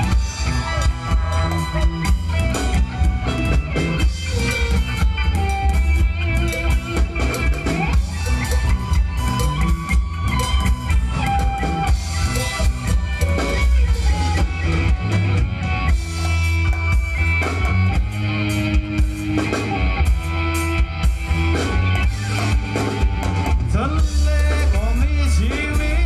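Live band playing upbeat Thai ramwong dance music through loudspeakers, with a steady drum beat and heavy bass.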